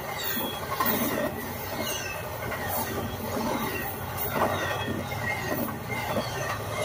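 Amtrak Amfleet passenger cars rushing past at speed: a steady rumble and rush of wheels on rail, heard played back through a device speaker.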